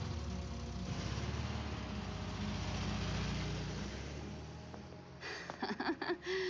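A low rumbling noise, like a running engine, that builds and then fades away about five seconds in; near the end, short high-pitched voice-like sounds begin.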